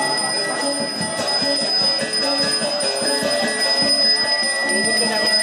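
A Balinese priest's ritual handbell (genta) ringing without pause, a steady high shimmer, over ceremonial music with many short held lower notes.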